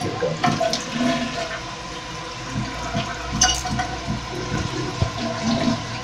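1994 Orion Jupiter toilet tank refilling after a flush: water runs in through the fill valve as a steady rushing hiss with a faint steady whistle.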